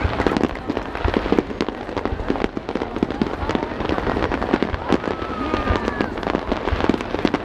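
Aerial fireworks shells bursting overhead in quick succession, a dense run of bangs and crackles.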